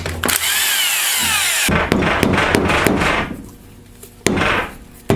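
Cordless drill spinning out a front-pump bolt on a Turbo 400 transmission, its motor pitch falling as it runs, then stopping about a second and a half in. A run of mallet blows on the pump follows, with one more sharp blow about four seconds in, knocking the pump loose from the case.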